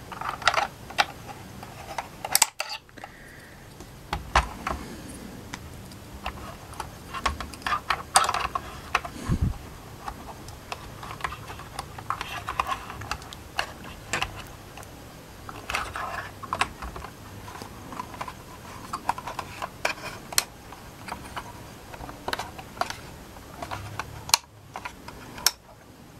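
Small hard-plastic clicks and taps, irregular and continual, as a Playmobil child seat is pushed and fitted into a toy car's seat. There are a couple of dull thumps.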